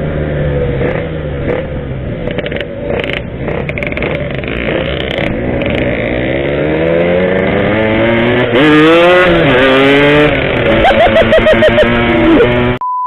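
Yamaha RX-King's two-stroke single-cylinder engine running on the move, its revs rising and falling, with a rapid string of throttle blips near the end before the sound cuts off suddenly.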